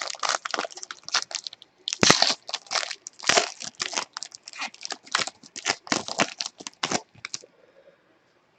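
Trading-card pack wrapper being torn open and crinkled, a dense run of short crackling rustles that stops about seven and a half seconds in.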